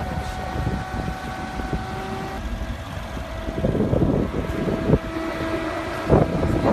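Mercedes G-Class SUV's engine running with a steady hum that drops slightly in pitch about a third of the way through, under wind buffeting the microphone; a few knocks sound near the end.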